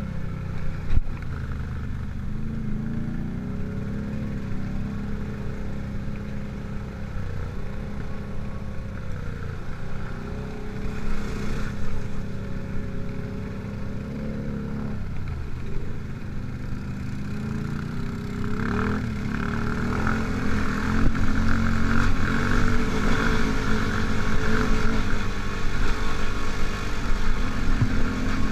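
ATV engine running under way at low trail speed, its pitch rising and falling with the throttle; it gets louder and rougher about two-thirds of the way through.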